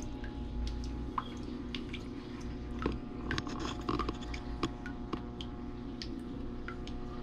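Steady hum of saltwater aquarium equipment with scattered small wet clicks and drips of water at irregular intervals.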